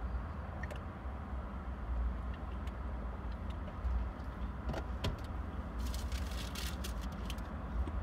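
Road traffic passing, heard from inside a stationary car as a steady low rumble. Near the end comes a short run of light clicks and rattles.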